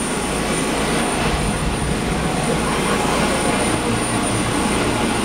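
Turbine helicopter running on the ground with its main rotor turning: a loud, steady rotor and engine noise with a thin, high, steady whine.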